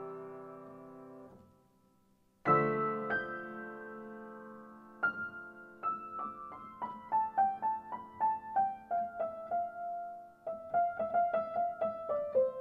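Background piano music: a held chord fading away, a new chord struck about two and a half seconds in, then a descending line of single notes from about five seconds in.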